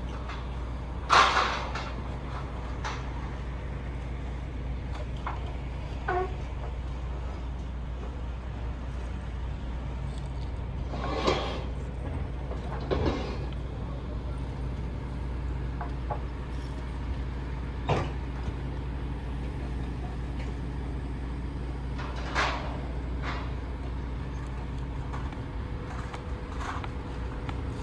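Truck-mounted knuckle-boom loader crane at work, its truck's diesel engine running with a steady low hum to drive the hydraulics. Several short clanks and hisses from the crane cut through it, the loudest about a second in.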